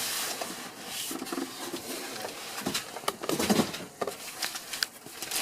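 Unpacking noises: irregular rustling of packaging with light clicks and knocks as accessories are handled, busiest around three and a half seconds in.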